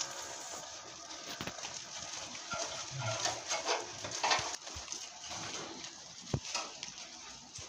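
Goats feeding at a metal hay rack: dry branches and hay rustling as they tug at them, with scattered knocks and clicks against the rack and on the straw-covered ground.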